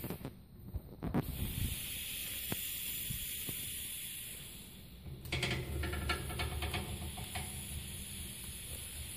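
Compressed air hissing steadily from an air-driven wire soap cutter as it is pushed through a block of cold process soap. A little past halfway, a low rumble with a run of rattling clicks joins the hiss.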